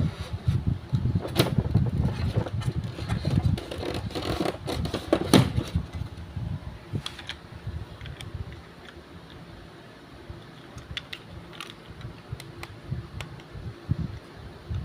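Packaging and its contents being handled during an unboxing: irregular knocks, clicks and rustles, busy and loud for the first half, then quieter with scattered light clicks.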